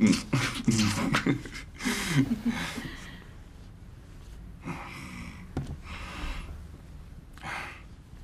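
A couple kissing, with voiced murmurs and breathy sounds in the first three seconds, then a few soft breaths.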